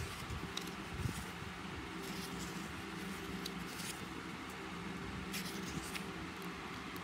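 Pages of a small hardback book being turned and handled, giving a few soft paper rustles and flicks, over a steady low background hum.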